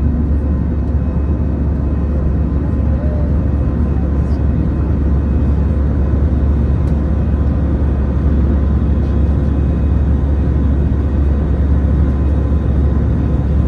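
Steady roar of an Airbus A320's jet engines during the climb after takeoff, heard inside the passenger cabin, with a heavy low rumble and a few faint steady tones above it.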